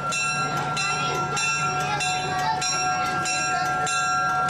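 EMD GP7 diesel locomotive's bell ringing steadily, about two strikes a second, as the locomotive rolls in to the platform, with the diesel engine running underneath.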